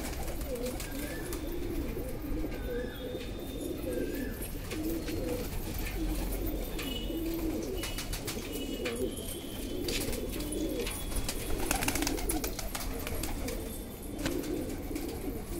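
A flock of domestic pigeons cooing, many low warbling calls overlapping without a break, with scattered light clicks.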